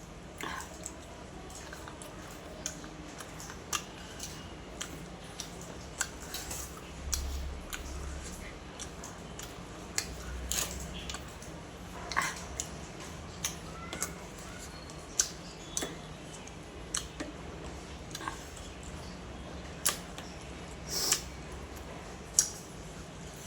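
Close-up eating sounds: irregular sharp clicks and smacks of chewing, roughly one a second, over a low steady hum.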